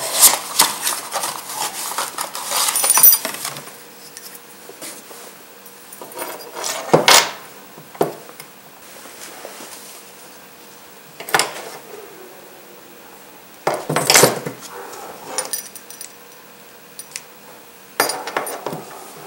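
Handling a new ignition lock cylinder and its metal keys out of a cardboard parts box: cardboard rustling and keys clinking in a busy flurry at first, then a few separate metallic clinks spaced several seconds apart.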